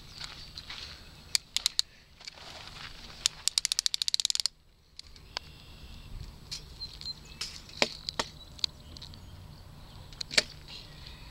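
Scattered sharp clicks and knocks of handling a tape measure and a caught bass on a wooden bench. About three seconds in comes a quick run of about a dozen clicks at roughly ten a second, then the sound cuts out for half a second.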